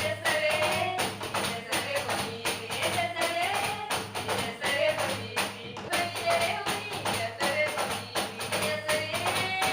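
Batuque music: a sung melody over fast, even hand percussion.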